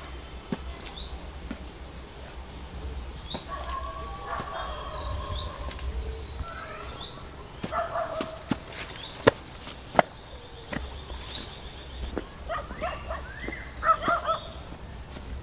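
Birds chirping and calling, with many short high chirps throughout. Scattered sharp clicks and knocks, the loudest two about nine and ten seconds in.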